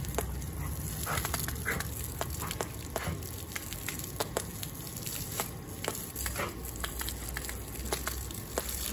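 Garden-hose water stream spattering onto a wet dog's coat and the muddy grass, a steady hiss broken by frequent small splashes and clicks as the dog snaps and laps at the stream.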